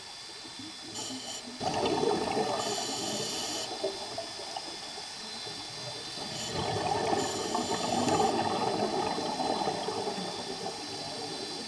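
Scuba diver's regulator underwater: two long rushes of exhaled bubbles, starting about a second and a half in and again about six and a half seconds in, over a faint steady hiss.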